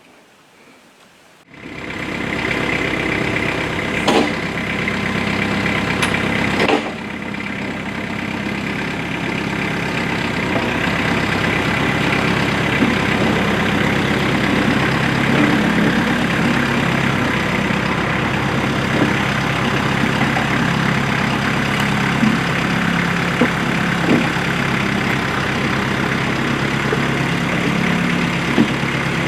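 Kubota tractor's diesel engine running steadily while it pulls a box blade to smooth dirt. It comes in abruptly about a second and a half in, with a couple of sharp knocks within the next five seconds.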